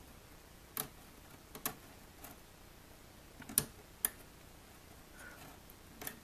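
Metal pick clicking against the inside of a ThinkPad laptop's damaged USB port as it prises at the broken insert: about six sharp, irregular clicks.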